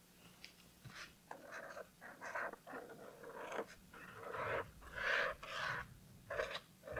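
Black fine-tip pen drawing on sketchbook paper: a run of faint, short scratchy strokes with brief pauses between them, as leaf outlines are traced over.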